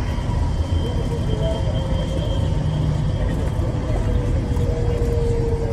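Airport people-mover train running at speed through a tunnel, heard from inside the car: a steady rumble with a faint whine whose pitch slides slightly lower near the end.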